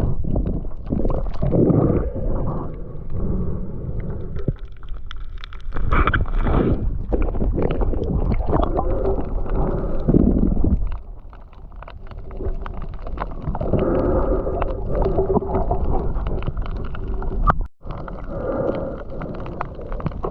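Muffled water sloshing and gurgling, uneven and mostly low, with a few sharp clicks.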